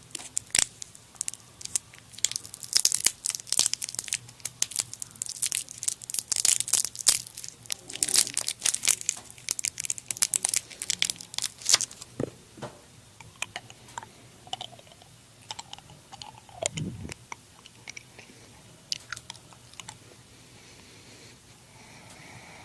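A crinkly sheet of parchment paper being crumpled and crunched close to the microphone: dense crackling for about the first twelve seconds, then sparser single crackles and clicks.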